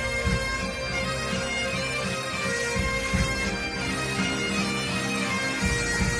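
Bagpipes playing a tune over a steady drone, with a regular low beat underneath.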